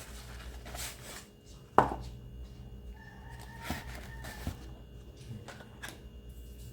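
Skechers Arch Fit running shoe's Goodyear rubber sole knocked against a hard surface: one sharp knock about two seconds in, then a few lighter taps and clicks.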